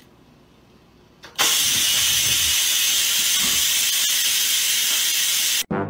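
Electric pressure rice cooker venting steam: a loud, steady hiss that starts suddenly about a second and a half in and stops abruptly shortly before the end.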